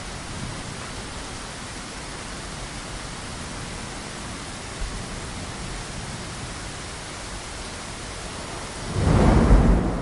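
Steady hiss of heavy rain, with a loud clap of thunder about nine seconds in that rumbles low for about a second and then fades.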